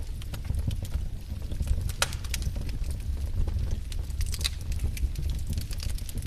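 Wood fire burning, with a steady low rumble of flames and irregular sharp crackles and pops from the firewood, one louder pop about two seconds in.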